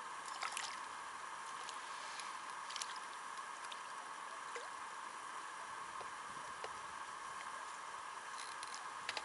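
Quiet waterside ambience: a steady faint hiss with a few soft clicks, and a short run of light wet clicks near the end as a small hooked crucian carp is swung out of the water.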